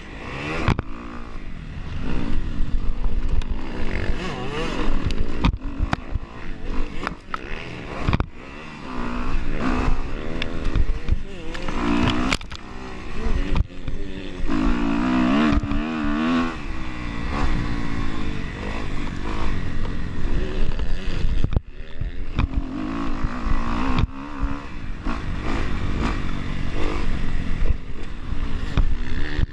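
Kawasaki motocross bike's engine, ridden hard round a dirt track, revving up and falling back again and again, with brief drops where the throttle is chopped, about four times.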